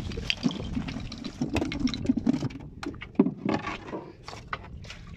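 Sea urchins and seaweed being shaken out of a nylon mesh net bag onto a styrofoam box lid: an irregular run of clicks, scrapes and rustles as the spiny shells drop and shift.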